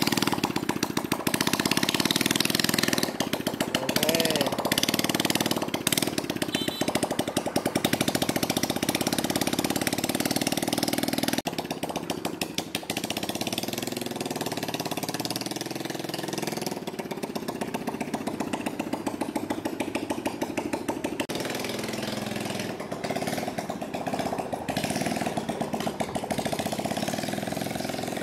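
A 110cc single-cylinder four-stroke motorbike engine in a homemade three-wheeler runs and revs as the trike is ridden, its note rising and falling. About eleven seconds in, the sound drops suddenly to a quieter level.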